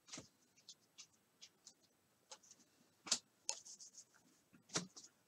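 Chrome trading cards sliding and clicking against one another as they are flipped through by hand: faint scattered clicks and scrapes, the loudest about three seconds in and again just before the end.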